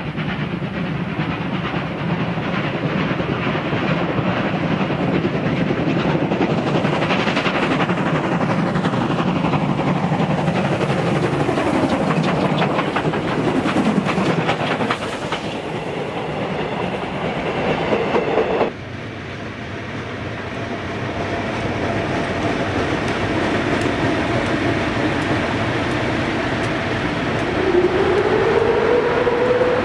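Train sounds with long falling sweeps in pitch, cut off abruptly about 19 seconds in. A heavy coal train hauled by South African class 6E1 3 kV DC electric locomotives then rolls past, its noise building steadily, with a tone that rises near the end.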